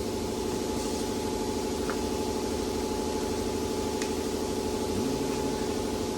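Steady droning hum of a running machine with a fast, even pulse and a thin steady whine above it, with a couple of faint clicks.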